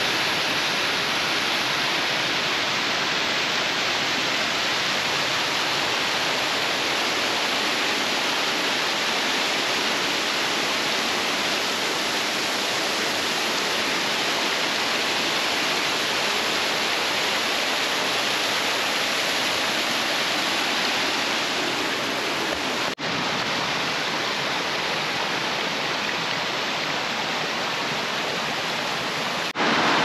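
Steady rush of falling water from a mountain waterfall and its stream, with a brief dip about two-thirds of the way through.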